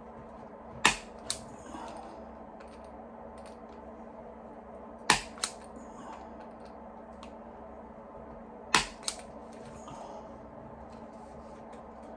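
Sharp clicks from a hand tool, in three pairs about four seconds apart, the first of each pair the louder, over a faint steady hum.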